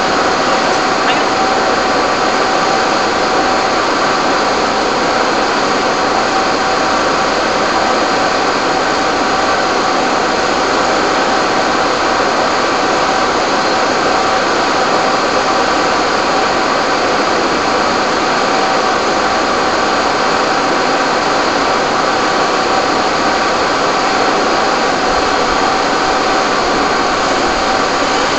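Fire engines running steadily to drive their pumps while hoses and the aerial ladder spray water: a constant mechanical drone with hiss and a few steady tones that never changes.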